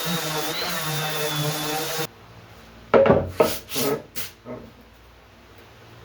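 Background music for about two seconds, then it cuts off. A hand tool then rubs across wood in about five quick scraping strokes, which fade out.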